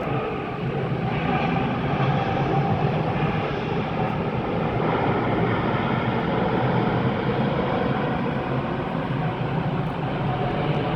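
Jet airliner's engine noise, a loud steady rushing sound that holds level throughout.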